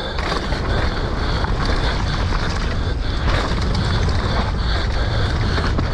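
Mountain bike descending a muddy trail at race speed: steady wind buffeting on the microphone over the low rumble and rattle of tyres and frame on rough ground, with a few sharp knocks.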